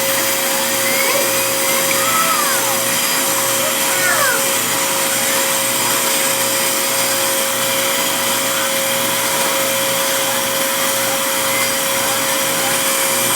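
Vacuum cleaner running steadily, a constant motor whine over an even rush of air, as it is run over a dog's coat.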